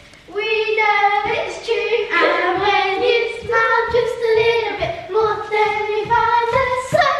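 A child singing a melody in long, held notes, starting a moment in.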